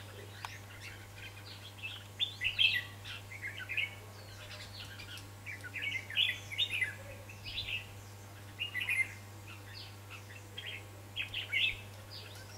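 Red-whiskered bulbuls singing: short, rich chirping phrases in quick succession, the competitive territorial song that the trap's decoy bird is meant to provoke. The loudest phrases come about two and a half seconds in.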